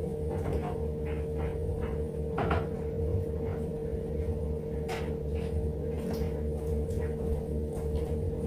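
Someone rummaging in a closet: a few short knocks and clatters, the loudest about two and a half seconds in, over a steady low hum.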